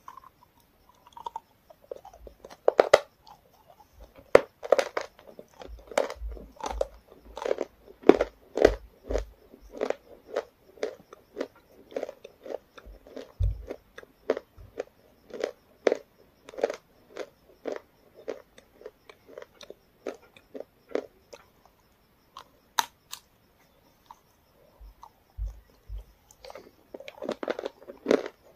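A person biting and chewing a crunchy food: a steady run of crunches, about two a second, that stops for a few seconds near the end and then starts again.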